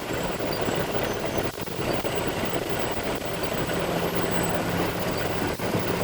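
Concrete truck's diesel engine running steadily, a continuous low drone with dense mechanical noise.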